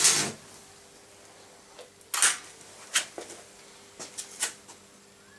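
A short rushing burst at the start, then a handful of separate knocks and clatters, like objects being handled and set down, over a faint steady hum.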